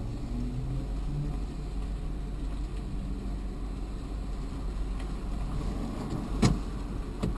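A car driving slowly, heard from inside the cabin as a steady low engine and road rumble. Near the end there are two sharp clicks, under a second apart, the first the louder.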